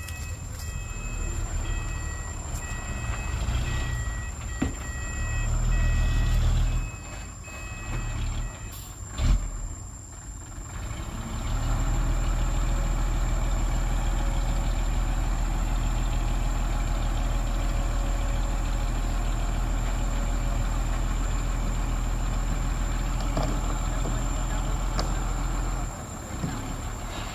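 Diesel dump truck reversing with its beeper sounding in repeated two-tone beeps, then a short sharp burst about nine seconds in. The engine then runs steadily at raised speed for about fourteen seconds while the hydraulic tipper raises the bed and the load of earth slides out, and it drops back near the end.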